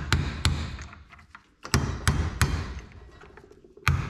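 Hammer blows on a homemade metal drift, driving the bearing out of a John Deere mower deck spindle's aluminum housing held in a vise; the bearing is moving out. Two sharp strikes, a pause, three quick strikes, then another near the end.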